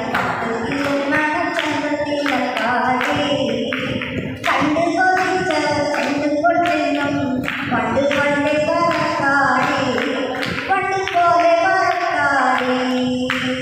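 A woman singing a Malayalam song, her voice gliding and holding notes, over a steady percussive beat.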